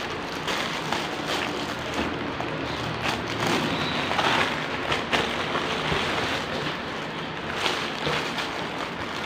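Packaging rustling and crinkling with many small crackles as a doll is unwrapped and handled.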